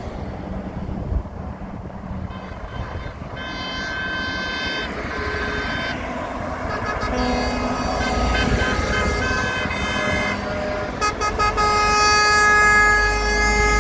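Convoy of lorries driving past, their drivers sounding multi-note truck horns several times: short blasts, a run of quick pulsed honks, then a long loud chord near the end. Diesel engine rumble beneath grows as a truck passes close.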